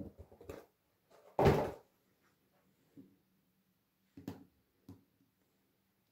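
Handling noise from plastic slime bottles and toys moved on a tabletop. There is one loud scrape or thump about a second and a half in, then a few lighter knocks as a bottle is picked up.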